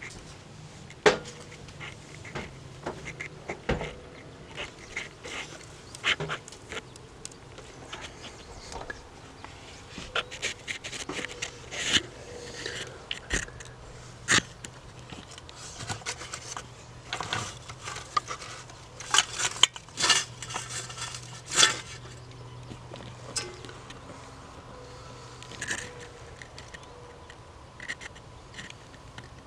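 Handling and movement sounds of someone moving about in a wooden attic: irregular clicks, knocks and rustles, a few of them sharp and loud, with a clustered run of them in the middle. A low steady hum lies underneath.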